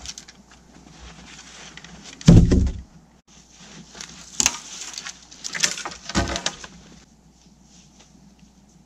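Wooden poles being handled: one heavy thud about two seconds in, then a run of knocks and crunches with a second thud, stopping about seven seconds in.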